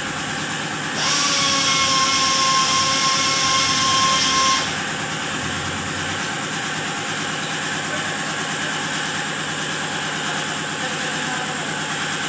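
Handheld power drill running steadily for about three and a half seconds with a high whine, starting about a second in, over a steady engine hum.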